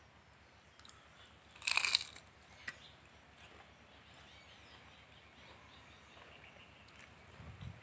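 A short crisp crunch of crispy fried jackfruit leaves about two seconds in, followed by a faint click.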